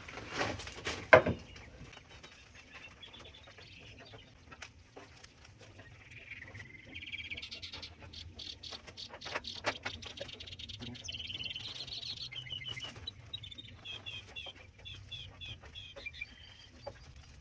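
Small birds chirping and singing in runs of short repeated notes through the second half, with a few sharp metal clinks of a spatula on a flat-top griddle in the first second or so.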